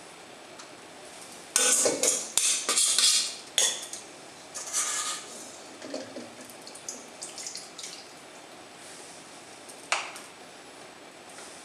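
Clatter and scraping of a utensil against a stainless-steel mixing bowl and stainless-steel rings in a frying pan as grated potato mixture is scooped and pressed into the rings. A run of scrapes and knocks comes a couple of seconds in, then lighter ones, and a single sharp knock near the end.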